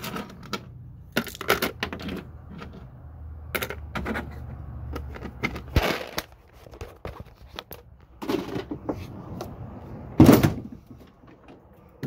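Clicks, knocks and clatter of metal hardware being handled while a boat trailer is jacked up, with a low steady hum through roughly the first six seconds and one heavy thump just after ten seconds.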